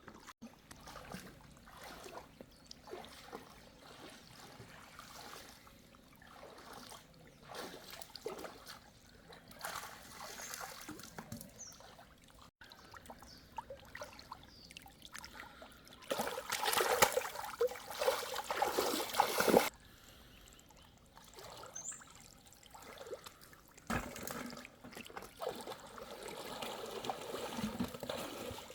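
Water trickling and splashing irregularly, much louder for a few seconds just past the middle before cutting off suddenly.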